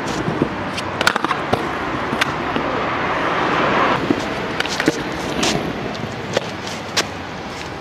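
Stunt scooter wheels rolling over paving slabs, the rumble getting louder until about four seconds in and then dropping away. Sharp clacks of the scooter's deck and wheels hitting the ground come through it.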